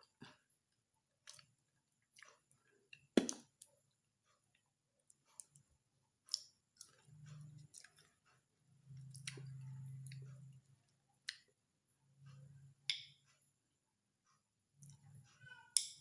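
Faint chewing and wet mouth sounds from a person eating a raw lemon: scattered clicks and lip smacks, with a few low hums about a second long in the second half.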